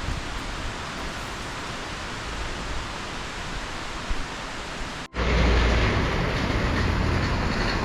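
Steady hiss of heavy rain. About five seconds in it cuts off abruptly and gives way to a louder, deeper rushing noise.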